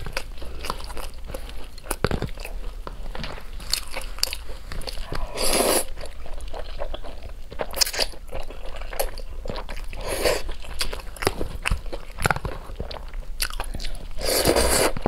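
Close-miked eating of wide flat noodles in chili oil: steady wet chewing and lip smacks, with three longer slurps of noodles about five and a half, ten and fourteen and a half seconds in.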